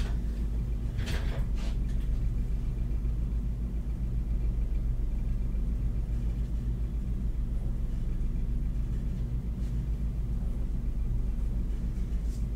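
Steady low rumble and hum from a lampworking studio's running equipment: the lit bench burner and exhaust ventilation. A single light clink about a second in.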